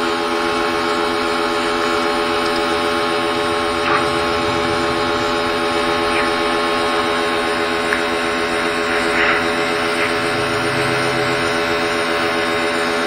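Black+Decker electric pressure washer running steadily: the pump motor's even hum under the hiss of the high-pressure jet blasting grime off concrete paving slabs.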